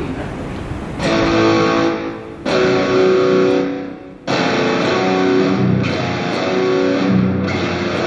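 Electric guitar played through an amplifier. A few chords are struck, the first about a second in, and each is held to ring before the next.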